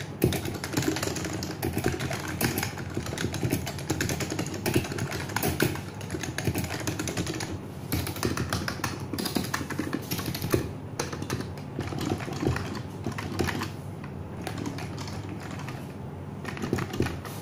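Continuous, fast typing on a KBParadise V60 Mini mechanical keyboard fitted with stock Matias Quiet Linear switches and side-print keycaps: a dense run of keystroke clicks over a steady low background hum.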